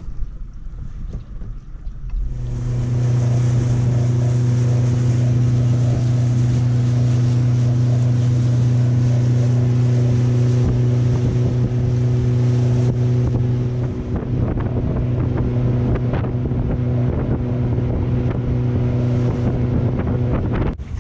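A small motorboat's engine running at a steady cruising speed, a loud even hum that sets in about two seconds in, with wind on the microphone.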